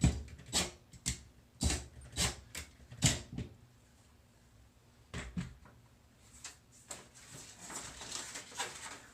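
Sharp knocks and clicks from the wall screws and the mirror's hanging wire being worked by hand, about eight in quick succession and then another a couple of seconds later, followed by softer scraping and rustling.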